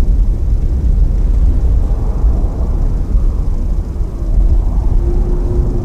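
Boeing 787 airliner's Rolls-Royce Trent 1000 turbofans running at taxi power as it turns onto the runway: a steady low rumble, joined by a faint steady hum after about four seconds.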